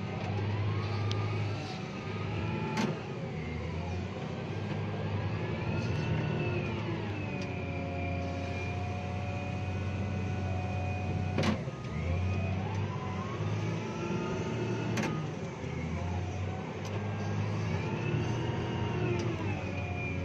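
Caterpillar 950G wheel loader's diesel engine running under load, heard from inside the cab, its revs and a high whine rising and falling in cycles as the loader works. A few sharp knocks stand out, about three seconds in, near the middle and a few seconds later.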